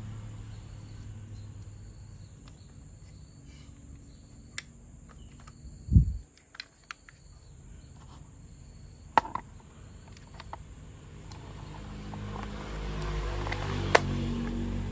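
Scattered sharp clicks and taps, as of plastic toy pieces being handled, with one loud low thump about six seconds in. A faint high chirping tone comes on and off through the first half, and a low rumble builds near the end.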